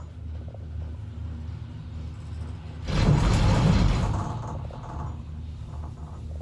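Gondola cable-car cabin running along its cable with a steady low hum. About three seconds in comes a loud rumble lasting about a second and a half as the cabin passes over a support tower's roller sheaves, and it then fades away.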